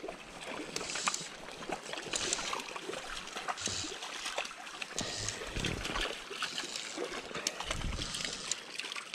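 Shallow stream trickling over stones, with intermittent small splashes from a hooked trout being brought in on a fly line, and light clicks of line handling.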